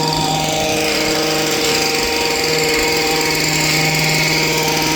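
A small engine running at a steady high speed, a loud even drone with no change in pitch.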